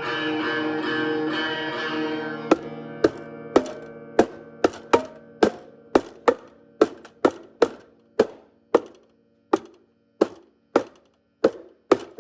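Instrumental music with no singing: a sustained chord with a beat fades out about two and a half seconds in. Then single plucked string notes of one pitch repeat, roughly twice a second, each dying away quickly.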